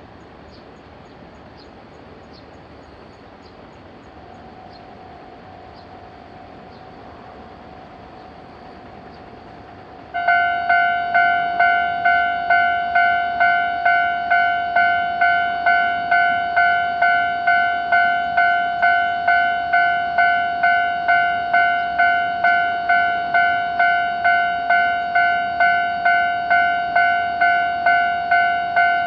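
Low background noise for about ten seconds, then a Japanese level crossing's warning bell starts suddenly and rings on in a steady, even rhythm of repeated clanging tones.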